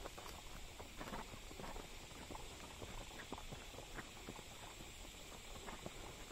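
Horses' hooves walking on a dirt trail: irregular soft knocks, a few each second, over a steady faint hiss.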